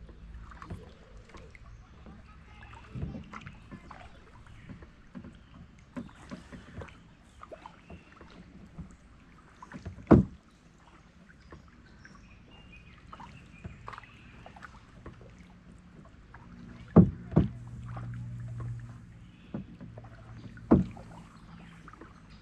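Plastic sit-on-top kayak being paddled on calm water: small splashes and drips from the paddle, with a few sharp knocks, about 10 seconds in, twice around 17 seconds and once near the end.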